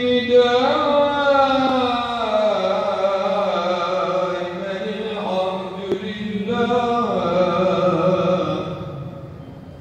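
A man's voice chanting a prayer in a slow, melismatic style, with long held and gliding notes in two phrases and a short breath between them about six seconds in. The chant fades out near the end.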